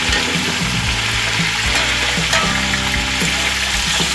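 Chicken pieces frying with browned onions in hot oil in a pot, a steady sizzle.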